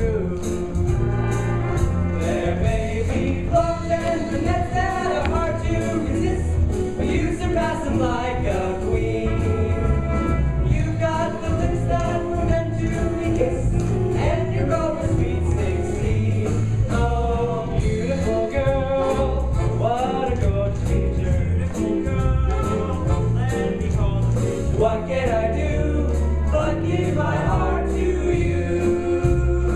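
Stage musical number: singing over band accompaniment with a steady beat.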